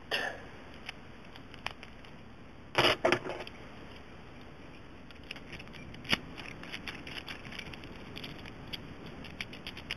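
Brass padlock and lock picks handled by hand: a brief metallic clatter of clicks about three seconds in, a sharp click near six seconds, then scattered light ticks.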